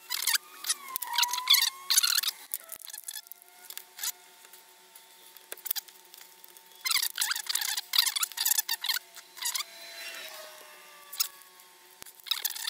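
Plastic shrink-wrap being picked and peeled off a Trustfire 18650 lithium-ion cell by hand, crinkling and tearing in two spells of rapid scratchy sounds: one at the start and one about seven seconds in, with lighter scraping between.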